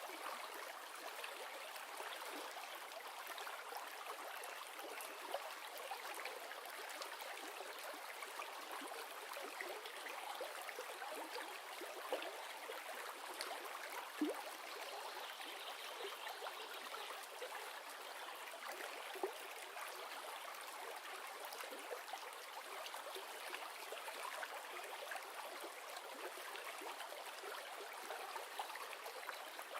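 River water flowing, a steady rushing with occasional small splashes.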